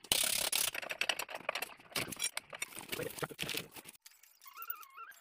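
Hand-work on a motorcycle's metal parts: a loud scrape, then a rapid run of metallic clicks and clinks of parts and tools being handled. About four seconds in the clatter stops, and a faint wavering, whistle-like tone comes in near the end.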